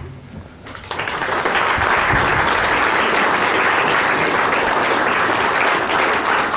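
Audience applauding. The clapping builds up about a second in and then holds steady.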